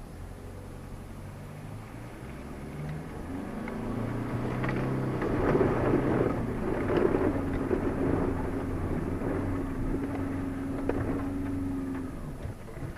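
Off-road 4x4's engine working under load, heard from inside the cab, its note rising and falling with the throttle, while the tyres churn through mud. The rough rumbling of mud and the running gear grows louder from about four seconds in.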